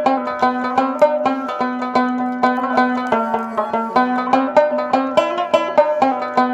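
Background music: a fast run of plucked-string notes, several a second, over a sustained low note.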